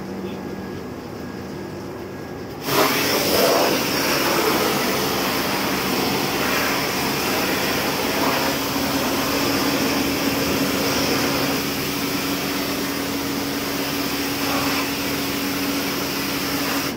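High-pressure washer lance spraying a water jet onto a steel railway coach side, a loud steady hiss that starts suddenly about three seconds in. A steady hum runs underneath.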